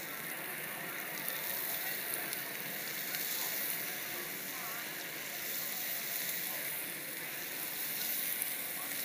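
Pieces of mini osso buco and diced mirepoix frying in a hot sauté pan: a steady sizzle with small crackles as the meat is set in to brown.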